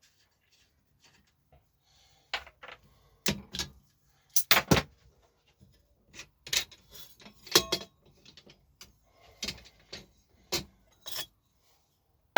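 Metal shock-absorber parts and tools clinking and knocking as a rear shock is taken apart: a dozen or so irregular sharp clacks, some ringing briefly, starting about two seconds in.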